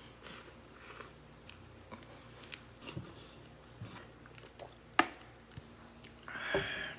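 Close-up mouth sounds of a person eating: soft chewing and biting of fried chicken, then drinking from a plastic bottle, with a sharp click about five seconds in and a short throaty vocal sound near the end.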